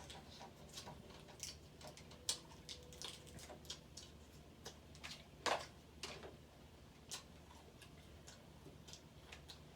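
Irregular sharp clicks and cracks of crab shell being broken apart and picked at, with one louder crack about five and a half seconds in.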